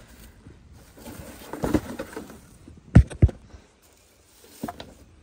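Rustling and handling noise as a potted mum is set down into a wooden bushel basket. Two dull thumps about three seconds in, a quarter second apart, then a small click near the end.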